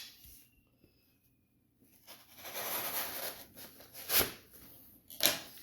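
A small mailed package being torn open, with tearing and rustling of the packaging starting about two seconds in, then two sharp knocks as it is handled.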